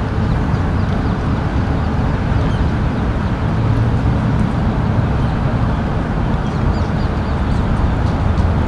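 Steady, loud, low outdoor rumble with a few faint, high, short chirps over it.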